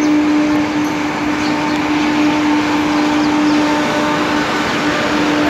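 A pair of Indian Railways WAG-7 electric locomotives running past: steady rolling rumble of wheels on rail, with a constant low hum throughout.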